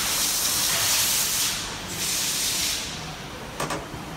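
Napkin tissue paper rustling and rushing as it is pulled by hand off the roll and fed through the napkin machine's rollers: one long rush, then a shorter one about two seconds in. A short clatter follows near the end.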